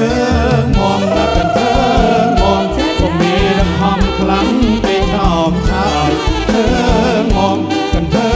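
Live band playing a Khmer romvong dance song, with singers' voices held in vibrato over a steady beat.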